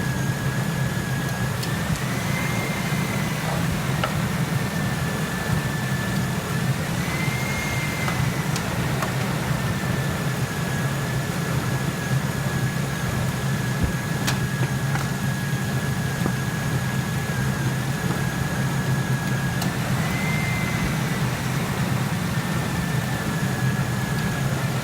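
2003 Ford F-150 engine idling steadily with the charging system under electrical load (rear defroster, wipers and high beams on) for an alternator load test. A thin high whine runs over it and rises briefly in pitch about three times.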